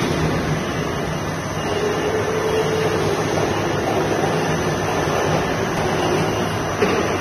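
Conical twin-screw extruder gearbox running on a test bed, driven by an electric motor: a steady mechanical running noise with a low hum.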